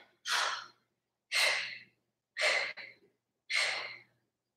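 A woman breathing out sharply through her mouth four times, about once a second, in time with repeated knee drives from a plank.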